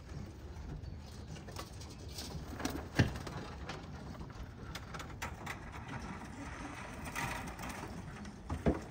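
Steady low rumble of outdoor background with a few sharp knocks, the loudest about three seconds in and another near the end.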